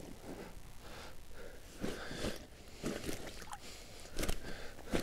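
Scattered soft rustles and knocks, about half a dozen, as a live common carp is handled and turned round on a padded nylon unhooking mat.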